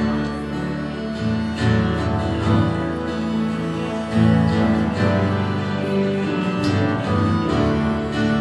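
Live church praise band playing an instrumental passage, with guitars to the fore.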